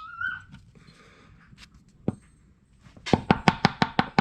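Hammer striking a hammer-type battery cable lug crimper: a single knock about two seconds in, then a quick run of about eight sharp, ringing metal-on-metal blows near the end.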